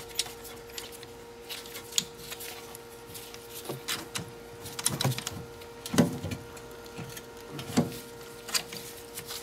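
Irregular metal clicks and knocks of a threaded brake caliper piston wind-back tool being fitted and worked against a rear caliper piston, the loudest knock about six seconds in. A faint steady hum runs underneath.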